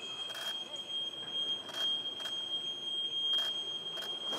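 T-129 ATAK twin-turboshaft attack helicopter heard from inside its cockpit with the main rotor turning, a steady high-pitched whine over an even rush of noise, with a few scattered clicks.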